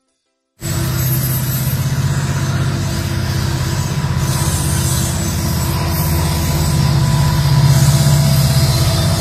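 Norfolk Southern diesel helper locomotives passing close under power, their engines giving a loud, steady low drone, with the wheels slipping on the wet rails. The sound cuts in abruptly about half a second in.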